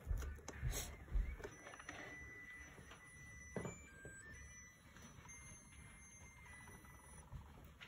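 Faint electronic beeping tune from a Christmas village decoration's built-in music chip, single thin notes stepping up and down in pitch, starting about a second and a half in and stopping near the end. A few soft knocks come before the tune starts.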